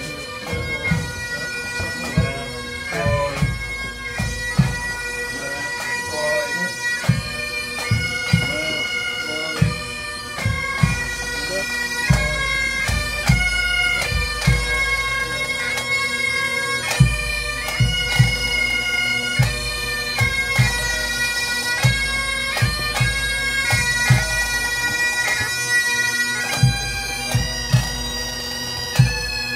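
Pipe band's Great Highland bagpipes playing a tune in long held notes over their steady drone, with a bass drum beating about once a second.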